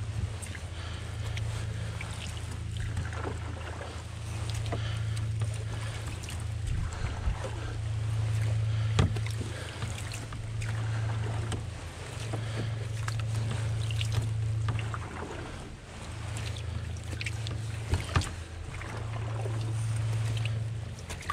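Canoe moving through fast river water: water rushing and splashing against the hull. Wind rumbles on the microphone, swelling and fading every two to three seconds, and two sharp knocks come about nine and eighteen seconds in.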